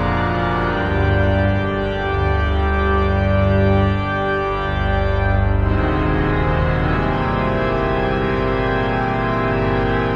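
Pipe organ playing sustained full chords over deep pedal notes, moving to a new chord about six seconds in.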